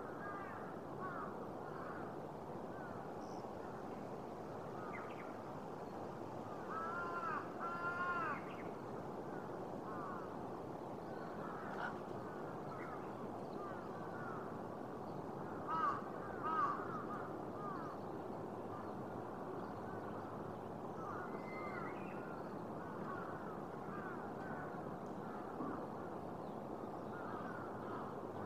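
Crows cawing: a quick run of caws about seven seconds in and two louder caws about halfway through, over a steady background din of many overlapping calls.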